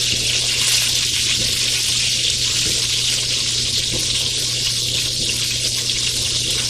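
Chicken strips frying in oil in a skillet: a steady sizzle with faint crackles.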